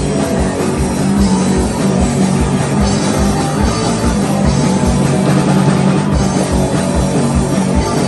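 Live rock band playing an instrumental passage: drum kit keeping a fast, steady beat under sustained bass and guitar.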